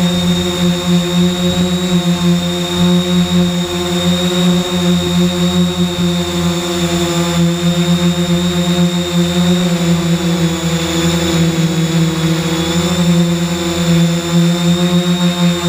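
A 3DR X8 coaxial octocopter's electric motors and propellers whirring steadily while it hovers, heard close up from on board. The pitch holds nearly constant, with only a slight wobble near the end.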